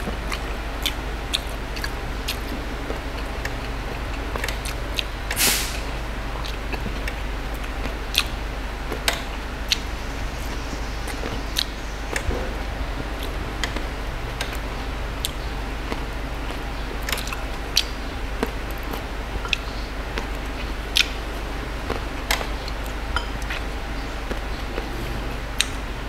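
Close-miked mouth sounds of eating red grapes: scattered short, sharp wet clicks and smacks as grapes are bitten and chewed, with one longer burst about five seconds in, over a steady low hum and hiss.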